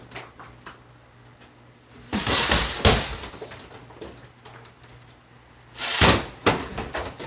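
Two loud thumps, each trailing a short rush of noise, about three and a half seconds apart, with light clicks and knocks between them.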